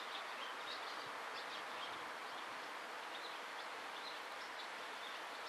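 Quiet rural outdoor ambience: a steady background hiss with scattered short, faint high-pitched chirps.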